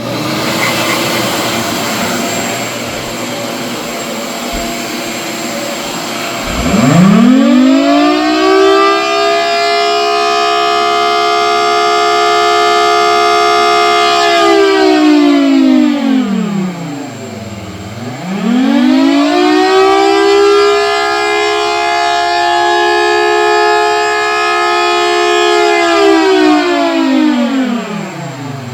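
3D-printed scale model of a Federal Signal Thunderbolt 1000T siren, air-fed by a shop vac and its rotor spun by a DC motor. A steady rushing noise comes first, then about six seconds in the siren winds up into a loud wail and holds. It drops to a low growl, winds up and holds again, then falls once more near the end.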